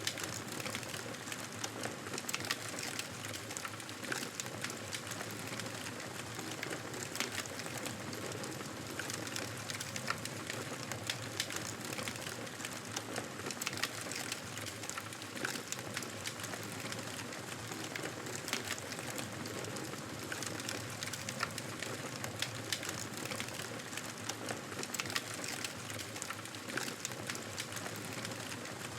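Wood fire crackling in a fireplace: a steady hiss with frequent small, irregular pops and snaps.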